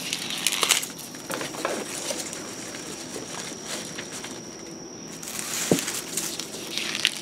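Freshly pulled garlic plants being handled and laid on newspaper: stiff stalks and dry leaves rustling and brushing against crinkling paper, with a soft thump late on. A faint steady high whine sits behind it.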